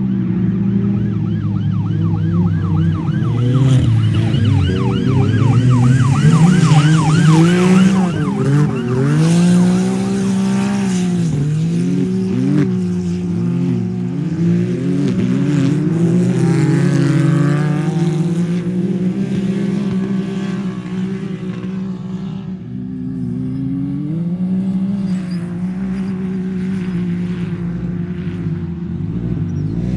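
Off-road vehicle engine running loud and continuously, its revs rising and falling again and again, loudest in the first third.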